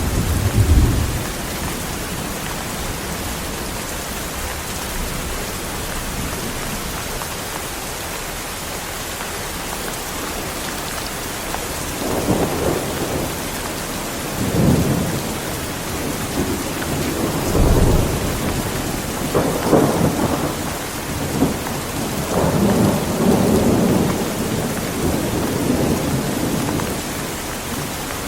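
Heavy rain pouring steadily, with rolls of thunder rumbling over it. A rumble at the very start dies away within about a second. About halfway through, a run of rumbles begins, with a deep clap a little after that, and they keep rolling on until near the end.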